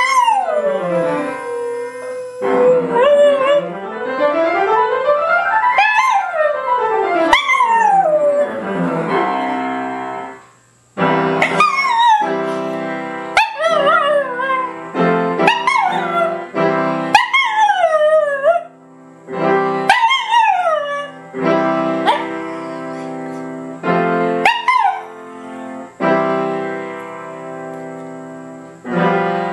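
Small terrier howling along to music: repeated wavering howls that slide down in pitch, over sustained chords of the music.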